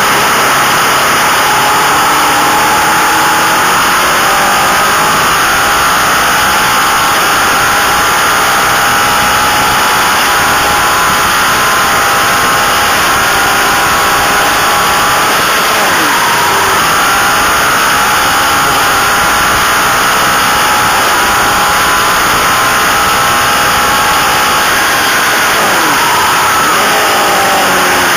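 Onboard sound of a racing motorcycle at speed on a circuit: the engine running hard under heavy wind rush on the microphone. Its note climbs and falls with gear changes, dropping sharply about halfway through and again near the end.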